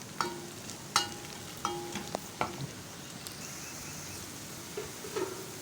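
Onions, cumin and dry red chillies sizzling in oil in a cooking pot while being stirred. A spoon clinks against the pot four times in the first half, each clink ringing briefly.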